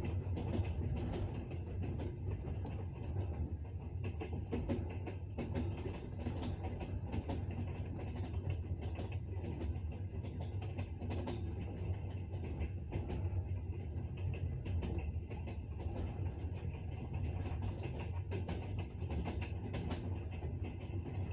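Passenger train running at speed, with a steady low rumble and the frequent knocking clatter of its wheels on the rails.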